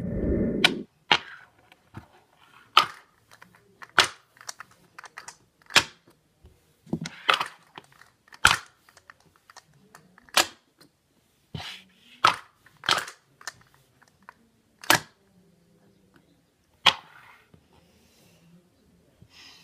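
Dice-stacking cup work: dice clacking and rattling inside a plastic cup moved over a hard tabletop, in a series of sharp, irregular clacks with a few short rattles. A loud, muffled bump at the very start.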